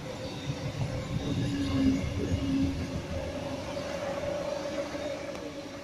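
Sydney Trains Waratah (A set) double-deck electric train passing close by, its wheels rumbling on the rails under a steady electric whine. It is loudest about two seconds in and fades near the end as it moves away.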